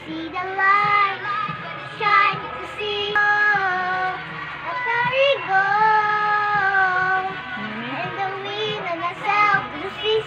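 A girl singing into the blades of a running electric stand fan, holding several long notes, some sliding up or down in pitch.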